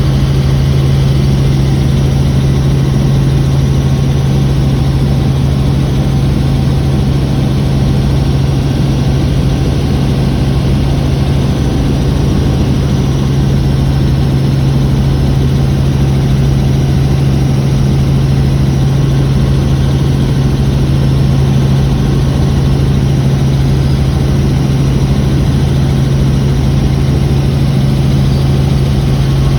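Helicopter engine and rotor running steadily in flight, heard as a loud, even low drone.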